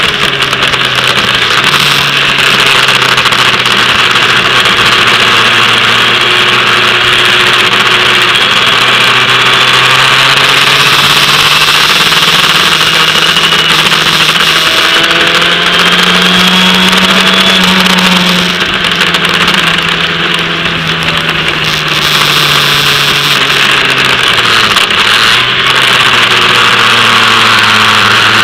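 Formula Ford single-seater engine heard onboard, running under a loud steady rush of wind and spray on the microphone; its pitch rises and falls slowly as the driver works the throttle, climbing about halfway through and dipping briefly near the end.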